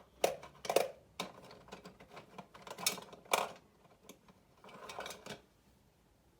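Manual typewriter being typed on: irregular key strikes, with a longer clatter about five seconds in.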